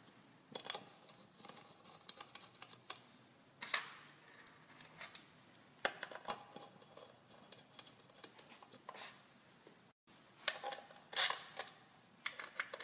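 Scattered small metallic clicks and taps as the screws of a Harley-Davidson derby cover are started and turned in by hand with a small hex-bit driver.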